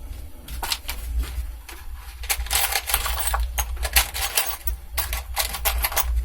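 Small metal screws and hardware clicking and rattling as they are rummaged through by hand, sparse at first and then a dense run of clicks from about two seconds in, over a steady low hum.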